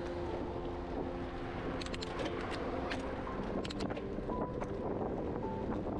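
Wind rushing over the microphone, with a low steady hum and scattered light clicks.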